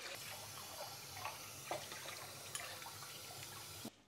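Kitchen tap running water over red lentils in a mesh sieve as they are rinsed, with a few light clicks. The water cuts off suddenly near the end.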